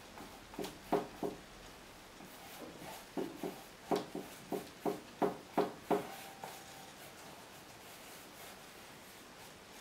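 Paintbrush dabbing acrylic paint onto a stretched canvas: a series of about a dozen short taps, roughly two a second, stopping about six seconds in.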